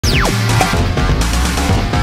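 Loud intro jingle of electronic music with a heavy bass, opening with a quick falling sweep.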